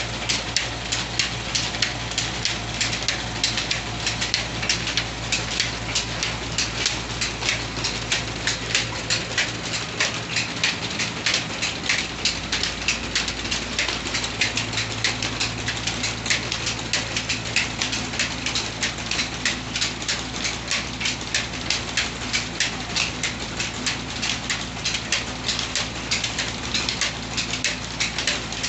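An old stone flour mill (atta chakki) driven by a 25 HP electric motor through a long flat belt, running. A steady low hum sits under a fast, even clatter of about three clicks a second.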